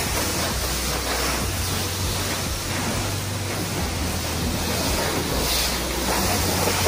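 Pressure-washer jet spraying water onto a car's body, a steady hiss with a low hum beneath it.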